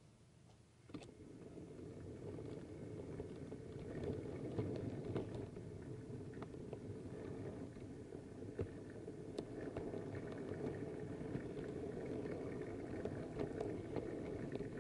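Model railway train on the move: a steady rolling rumble of the model wagons' wheels on the track, starting about a second in, with frequent sharp clicks as the wheels run over rail joints and points.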